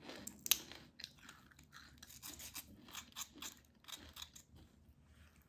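Crispy cornstarch-and-Parmesan-coated potato sticks being handled and snapped apart by hand: a run of faint, irregular crackles and crunches, the sharpest about half a second in.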